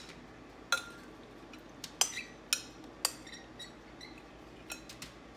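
Irregular clinks and taps of kitchenware, each with a short ring, as marinated tempeh pieces are laid out by hand on parchment-lined metal baking sheets from a glass bowl. The clinks come about eight times, the loudest about two seconds in.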